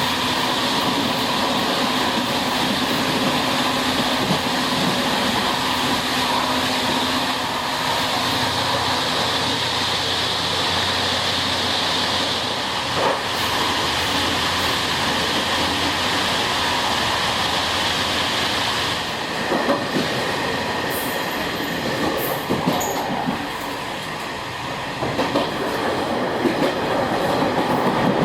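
Old non-air-conditioned passenger coaches of a Taiwan Railways ordinary train running along the line, with a steady rolling rush. About two-thirds of the way through, a run of sharp clicks and knocks joins in.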